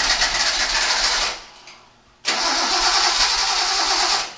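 Datsun 260Z's straight-six being cranked on the starter in two bursts of about two seconds each, cutting off between them, without catching. The engine is fuel-starved and will not start.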